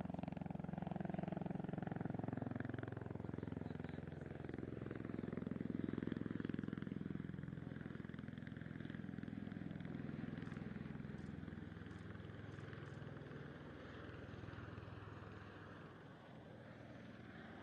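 A vehicle engine running, its pitch drifting slowly up and down; it grows louder until about six seconds in, then fades away.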